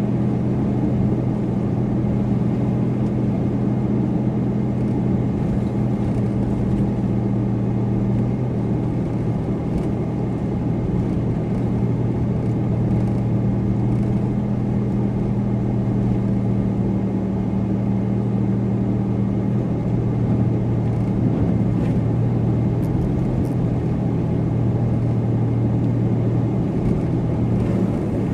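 Car driving at a steady speed: the engine holds an even low hum over a constant rush of tyre and road noise.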